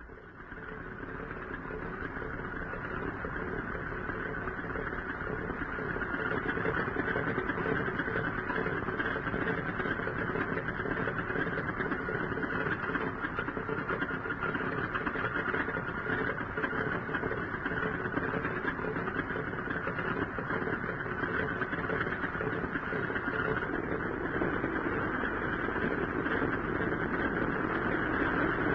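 Propeller aircraft's piston engine running steadily, swelling over the first few seconds and then holding at an even level.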